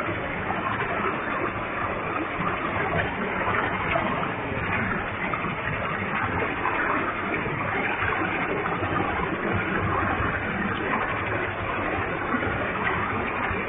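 A high-volume waterfall: water pouring and splashing in a steady rush that does not change.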